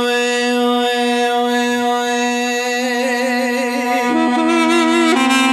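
Instrumental interlude of a Kurdish folk song: a steady held drone note under a slow, ornamented melody line, which drops to a lower, wavering phrase about four seconds in.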